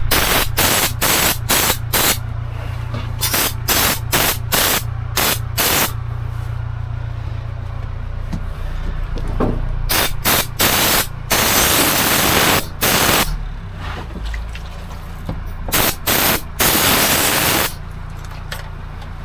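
Aerosol spray can spraying in hissing bursts: a quick run of short squirts over the first six seconds, then a few longer sprays later on.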